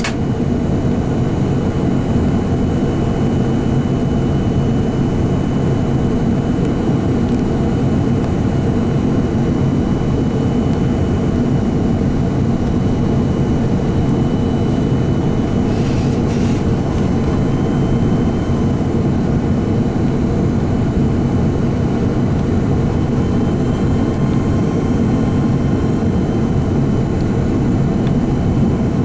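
Steady engine and airflow roar inside the cabin of an Airbus A330-300 in flight on approach, heard from a forward window seat.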